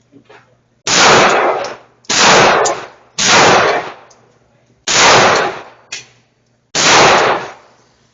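Five gunshots fired one at a time at an uneven pace, one to two seconds apart, each sharp report followed by a short echoing decay.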